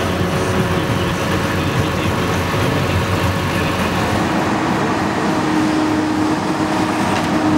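Komatsu tracked excavator's diesel engine running steadily amid demolition-site noise. About four seconds in the sound changes and a steady hum comes in.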